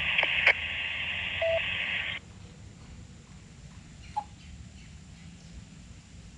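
Radio audio from an EchoLink repeater link through an iPhone speaker: a thin hiss with a click about half a second in and a short single-pitch beep, then the hiss cuts off suddenly about two seconds in as the other station's transmission ends, leaving quiet background.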